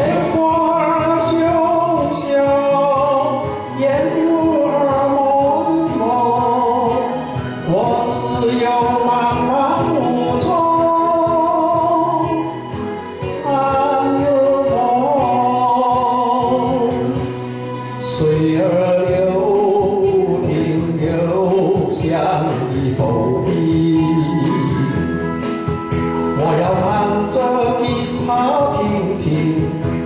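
A man singing a Mandarin song over instrumental accompaniment.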